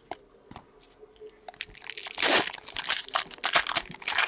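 Trading-card pack wrapper crinkling and crackling as it is handled and opened. It starts with a few faint clicks, and the loud crackle begins about halfway through, with the biggest bursts about two and three and a half seconds in.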